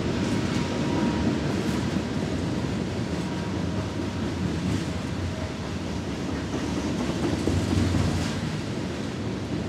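A train rolling past on the track: a steady rumble of railcars, with a few faint, irregular wheel clicks.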